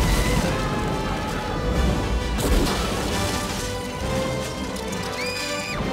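Dramatic trailer music with repeated crashing impacts, a heavy hit at the start and another about two and a half seconds in, and a short, high held note near the end.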